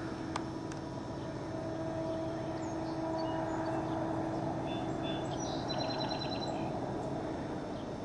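A steady droning hum over outdoor background noise, with a short run of quick, high chirps about five and a half seconds in.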